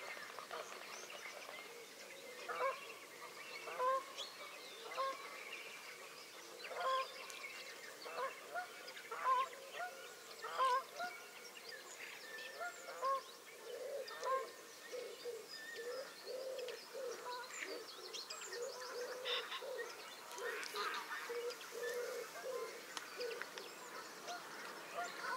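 Canada and greylag geese honking. Separate calls a few at a time through the first half, then a denser run of quicker, lower calls in the second half.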